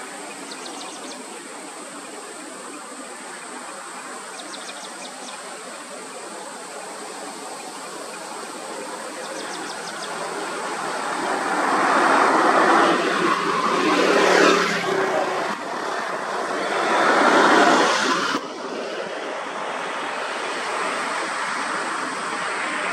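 Road vehicles driving by, with engine and tyre noise. The sound swells twice in the second half as vehicles pass close, the second swell dropping off suddenly.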